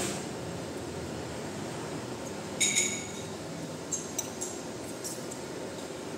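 Eating utensils clinking against a dish: two sharp clinks about two and a half seconds in, then a few lighter ticks about a second later.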